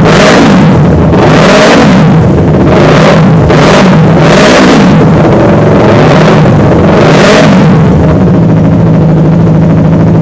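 Yamaha YZF R3's 321cc parallel-twin engine running loud at idle and being blipped about five times, each rev rising and falling back.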